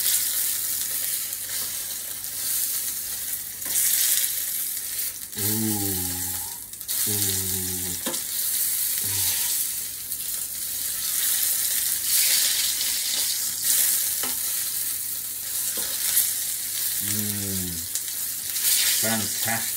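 Duck breast fillet sizzling steadily as it sears skin-side and sides in hot lard and butter in a frying pan, turned now and then with metal tongs. This is the sealing stage before the duck goes into the oven.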